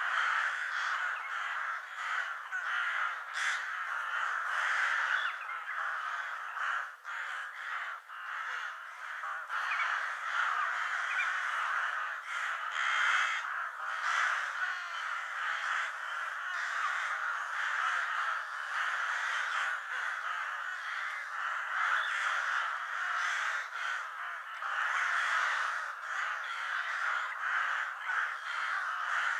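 A flock of crows cawing, with many calls overlapping one another without a break.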